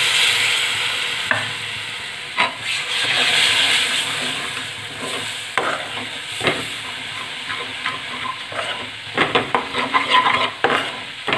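Milk poured into hot roasted gram flour and ghee in a metal pan sizzles, the hiss fading over the first few seconds. Then a metal spoon scrapes and clicks against the pan as the thickening halwa is stirred, with quick clicks near the end.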